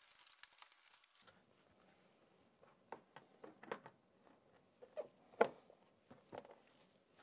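Faint small clicks of a screw being tightened by hand, then a few short, soft knocks and taps as the plastic side panels of a TOTO Neorest toilet are pushed and snapped into place.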